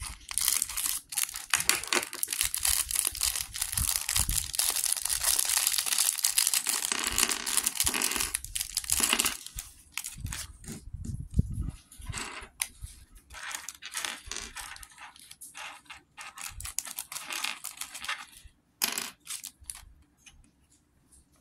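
Plastic LEGO minifigure polybag being torn open and crinkled: a dense crackling for about nine seconds, then scattered crinkles and clicks as it is handled.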